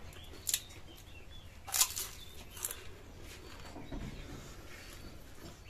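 A few short crunches of crisp fuchka (pani puri) shells being bitten and chewed, the loudest about two seconds in. Faint bird chirps sound in the background.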